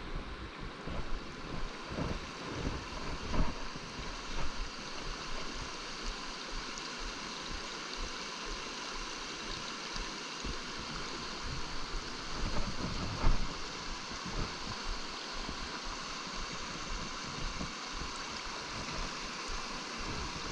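A small stream running over rocks: a steady rush of water. Wind rumbles on the microphone, with a few knocks, the loudest about two-thirds of the way through.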